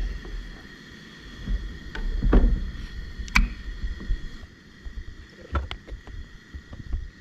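Wind rumbling on the microphone, with a few light clicks and knocks of camp cooking gear being handled.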